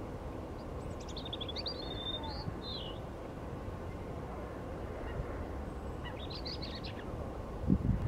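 European robin singing two short, high, warbling phrases a few seconds apart, over a steady low background rumble.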